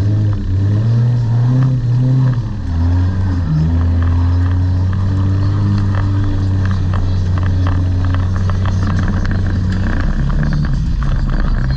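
Demolition derby car's engine heard from inside the car, revving up and down, then held at steady revs. Clattering and rattling pick up near the end.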